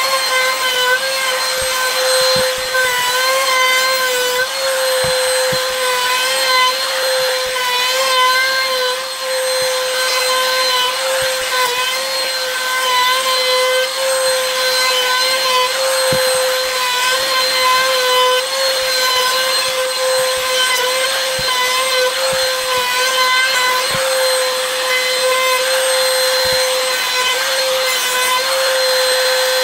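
Electric woodworking power tool running at a steady speed, a constant high whine that wavers only slightly, with faint ticks underneath.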